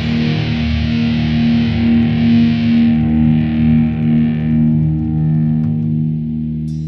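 Outro music: a distorted electric guitar sustaining heavy chords, fading toward the end.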